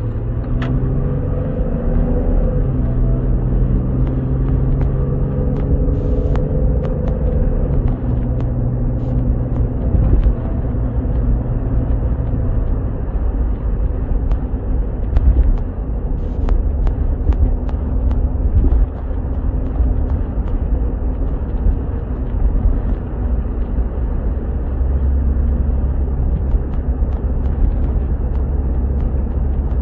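1996 Jeep Cherokee's engine and road noise heard from inside the cabin while driving. The engine note rises over the first couple of seconds, holds steady, then fades into a low, steady rumble of engine and tyres.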